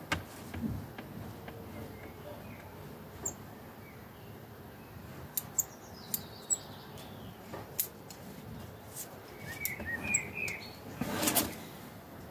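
Bonsai scissors snipping Chinese privet twigs: a scattering of sharp, separate clicks through the middle, with a louder rustle of handled foliage near the end. Small birds chirp briefly in the background.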